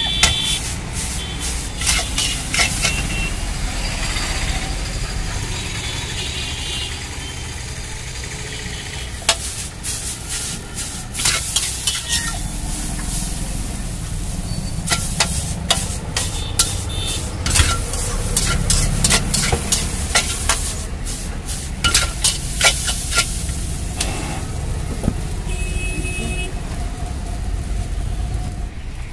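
Veg chow mein stir-frying in a wok: a steady sizzle with many sharp clanks and scrapes as a metal spatula and tongs toss the noodles against the wok.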